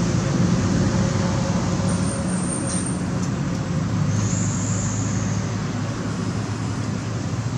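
Steady low engine hum under an even hiss, with no break or change.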